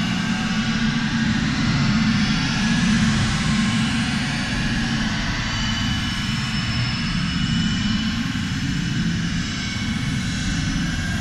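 Dark space ambient music: a steady synthesized drone of low rumble and airy hiss, with no beat. Faint high tones drift in and out near the middle.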